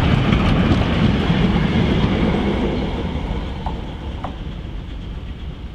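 A steam-hauled train rolling past on the rails, its wheels clicking over the rail joints, the sound fading as it moves away from about three seconds in.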